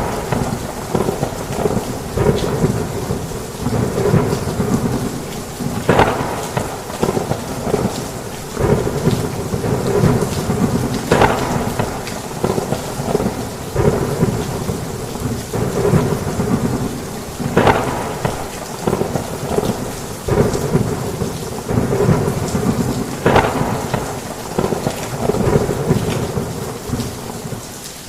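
Heavy rain falling steadily through a thunderstorm, with low thunder rumbling throughout and sharper claps about every five to six seconds.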